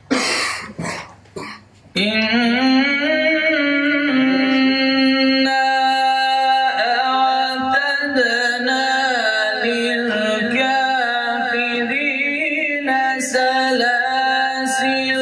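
A male qari reciting the Quran in melodic tajweed style, holding long notes and ornamenting them with wavering runs. The chanting starts about two seconds in, after a few short sounds.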